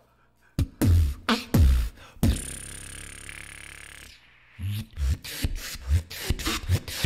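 Competition beatboxing through a microphone: a few sharp kick-drum-like hits, then one held pitched sound for about two seconds. After a brief gap a steady beat of hits follows, about three to four a second.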